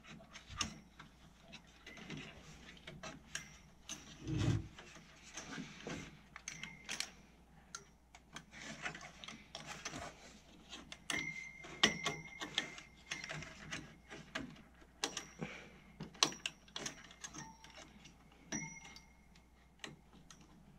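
Scattered clicks and taps of hands handling plastic and metal parts inside a desktop computer case while working the CPU cooler loose. There is a soft thump about four and a half seconds in, and a few brief high tones around the middle and again near the end.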